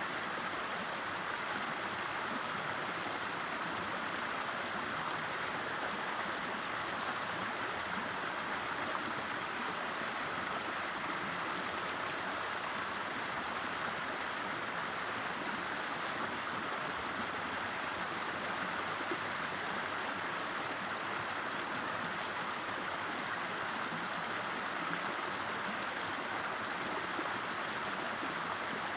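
River water rushing and babbling in a steady, unbroken stream, with most of its sound in the middle range.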